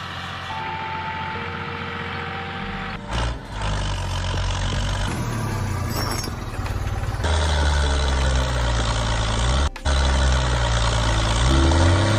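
Deep tractor-engine rumble that revs up and down several times, with a brief cut-out near the end, after a steady hum in the first three seconds.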